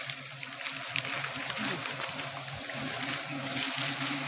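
A disturbed honeybee colony humming steadily, along with a steady hiss and the crackle of leaves and twigs being pushed through, while the nest is being smoked.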